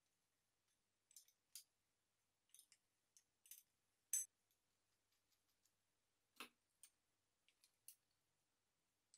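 Scattered light clicks and clinks of small metal parts being handled, about a dozen in all, the loudest a sharp click about four seconds in and a duller knock a little after six seconds, over near silence.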